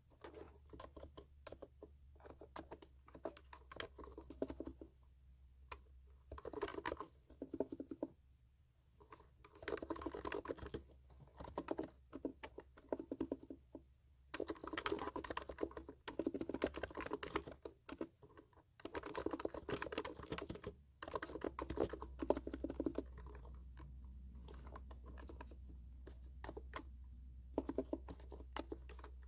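Computer keyboard typing, close-miked for ASMR: rapid key clicks in bursts of a second or two with short pauses between, growing sparse near the end.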